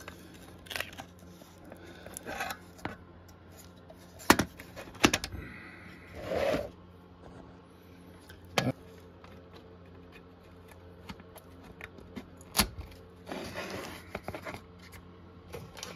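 Scattered clicks, taps and a few short scrapes of small tools and parts being handled at a workbench, over a steady low hum.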